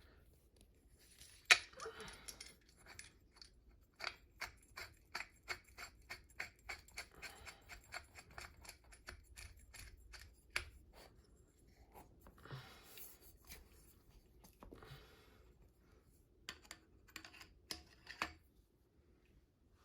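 Ceiling fan parts, screws and wires being handled during reassembly. There is a sharp knock about a second and a half in, then several seconds of small, evenly spaced clicks, then rustling and a few more knocks near the end.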